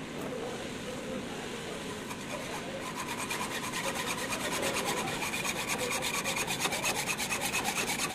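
Hand hacksaw cutting a metal bar clamped in a bench vise: a rasping back-and-forth rhythm that sets in about three seconds in and grows louder as the cut gets going.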